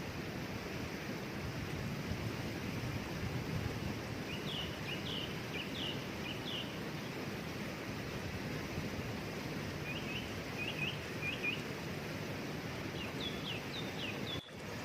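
Steady rush of a waterfall, with a bird singing three short bursts of quick, falling chirps: about four seconds in, about ten seconds in, and just before the end. The water sound cuts out for a split second near the end.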